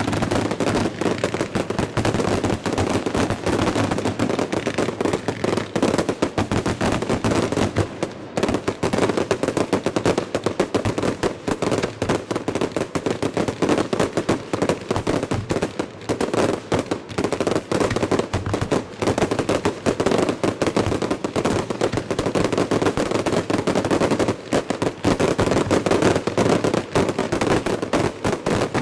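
Fireworks finale barrage heard close to the launch site: rapid, overlapping bangs of shells being fired and bursting, with no let-up except a brief thinning about eight seconds in.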